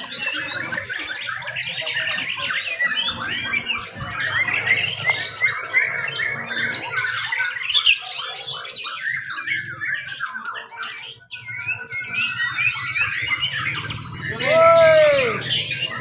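Several white-rumped shamas (murai batu) singing at once, a dense overlapping chorus of varied whistles and rapid phrases. Near the end a louder, lower arching call rises and falls.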